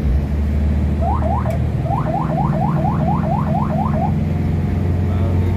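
Ambulance electronic siren giving a quick run of rising whoops, about four a second, for about three seconds starting a second in. It sounds over the steady engine and road drone inside the van's cabin.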